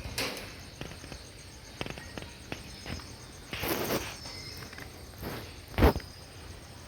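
Steady high insect chirping in the background, broken by a few short rustling or knocking bursts; the loudest is a sharp one about six seconds in.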